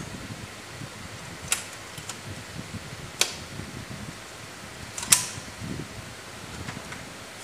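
Three sharp clicks from a hand working the front of a Siemens WL air circuit breaker, spaced about one and a half to two seconds apart, the last one loudest. They sit over a steady fan-like hum.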